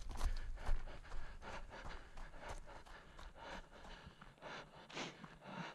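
A runner's quick footfalls on a dry forest floor of pine needles and twigs, with hard breathing.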